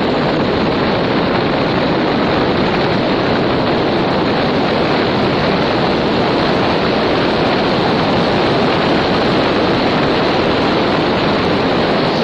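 Car driving at steady speed: a loud, even rush of road and wind noise with no distinct events.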